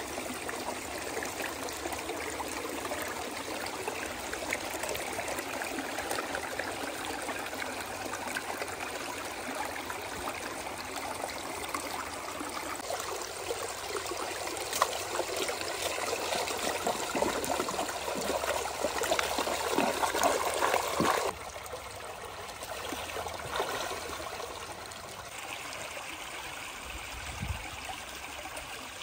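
Running water trickling and splashing, with more splashes from about halfway in. Near the end it cuts suddenly to a quieter, steadier flow.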